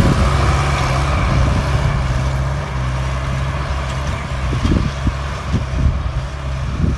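Tractor diesel engine running steadily under heavy load while pulling a harrow, slowly fading as it moves away, with a few faint knocks in the second half.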